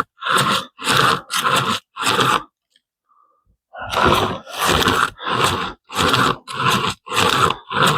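Pocket chainsaw, a hand-pulled cutting chain, rasping back and forth through wood in quick strokes, about two a second. The strokes stop for a little over a second about two and a half seconds in, then start again.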